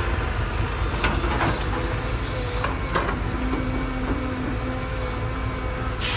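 Heavy construction machinery running with a steady low engine rumble, a few sharp metallic clanks and a faint steady whine.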